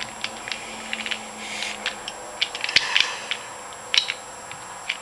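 Loose plastic Rubik's cube pieces clicking and clattering irregularly as they are handled and sorted, with one sharper click a little before the middle-to-end point.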